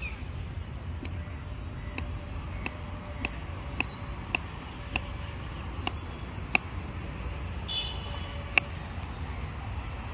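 A kitchen knife slicing a cucumber on a wooden cutting board: a sharp tap each time the blade strikes the board, about one every half second to second, over a low, steady street rumble.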